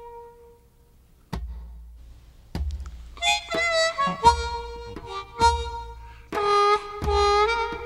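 Background music: a harmonica playing a slow tune over deep bass notes. A held note fades at the start, and the tune picks up again after a brief lull about a second in.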